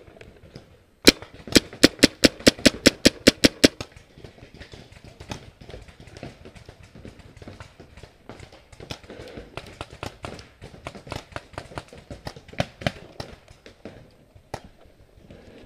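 Paintball marker firing a quick string of about a dozen loud shots, roughly five a second, starting about a second in. Fainter, scattered paintball shots keep popping after it.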